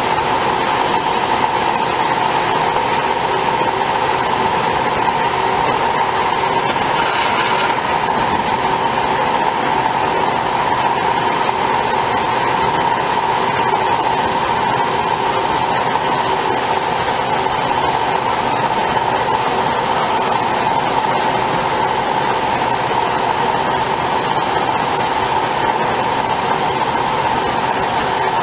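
DAMA GMDC-3100 CNC plate drilling and cutting machine running: a loud, steady mechanical hiss and hum with a constant whine, while its gas torch burns marking lines into the steel plate.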